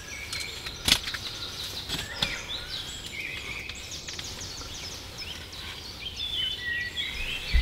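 Woodland birdsong: several small birds chirping and trilling, with one fast, even trill a little before halfway. A sharp click sounds about a second in.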